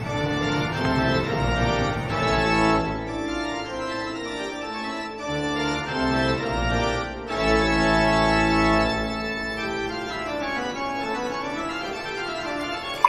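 Background organ music playing long, held chords.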